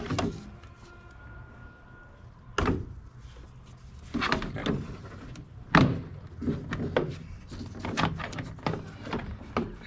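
Plastic windshield cowl panel of a 2014+ Kia Soul being pried loose and lifted: a series of sharp clicks and knocks as its clips pop free, the loudest about six seconds in, with quicker clicks after that.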